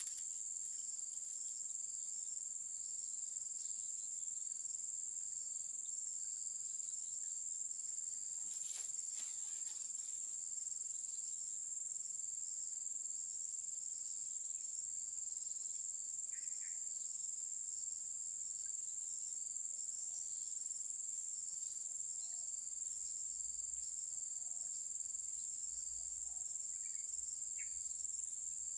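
Steady, high-pitched insect chorus: a continuous shrill drone from insects in the vegetation, unbroken throughout.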